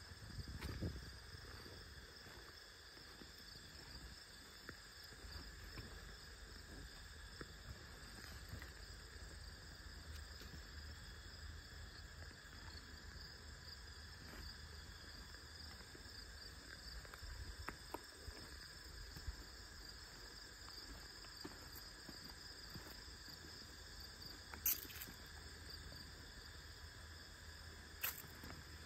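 Faint, steady outdoor insect chorus of chirring crickets, with two sharp clicks near the end.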